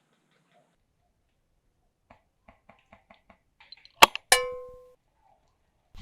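A run of light ticks, then two sharp knocks about four seconds in. The second knock is a metallic clang that rings on and fades over about half a second.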